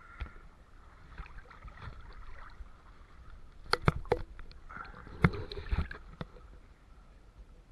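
Pool water sloshing and splashing against a waterproof action camera held at the surface. Sharp knocks come in two clusters, just under four seconds in and again about five seconds in.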